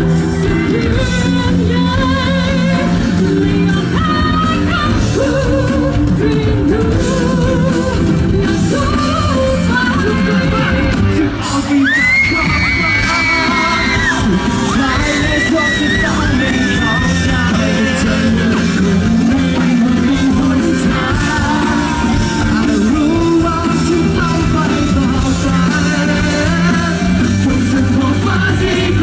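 Live pop-rock band with male and female singers, drums and amplified instruments, recorded from within the crowd; a long high sung note with vibrato is held near the middle.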